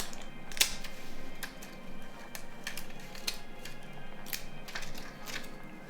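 Scattered small clicks and taps of plastic phone parts being handled and pried during disassembly of a Nokia 3310, about one or two a second, over quiet background music.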